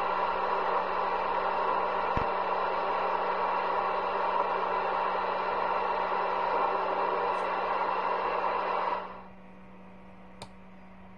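CB radio static hissing steadily from the radio's speaker, with a low hum under it. About nine seconds in the hiss drops suddenly to a faint hum, and a single click comes near the end.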